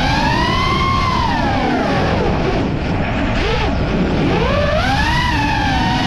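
FPV freestyle quadcopter's brushless motors whining, the pitch rising and falling with the throttle: climbing in the first second, easing off to a low point around the middle, then rising again near the end. A low rush of air runs underneath.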